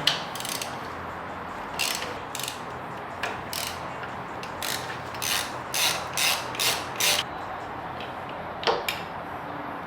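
Hand socket ratchet clicking in short strokes as the bolts of a motorcycle foot peg mount are worked loose, in several runs with a steady stretch of about two strokes a second midway.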